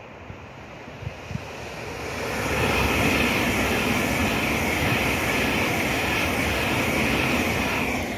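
Express passenger train passing at speed on the main line: a steady rushing of wheels on rail that builds over the first two or three seconds, holds loud, and drops away near the end.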